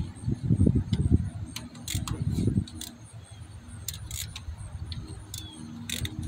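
Scattered metal clicks and clinks of a ratchet wrench with an extension and 10 mm socket being fitted onto the thermostat housing bolts, after a low muffled handling rumble in the first two and a half seconds.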